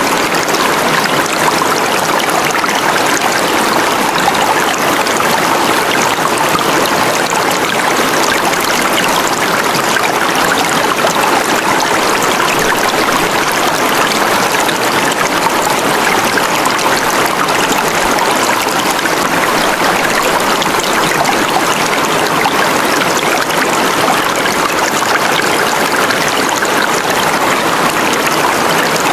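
Steady, unbroken running-water noise like a stream, the masking track of a subliminal audio.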